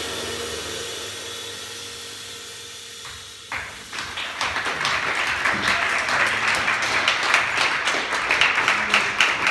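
The jazz quartet's last chord ringing out and slowly fading. About three and a half seconds in, audience applause starts suddenly and builds.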